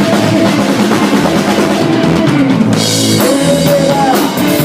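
Live band playing an instrumental stretch of a rock-and-roll song, drum kit driving it with bass drum and snare under held guitar and bass notes.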